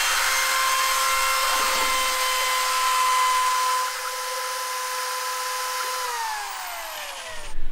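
Electric drill-driven glaze mixer running with a steady whine as its paddle stirs a bucket of liquid ceramic glaze. About six seconds in, the motor winds down, its pitch falling until it stops.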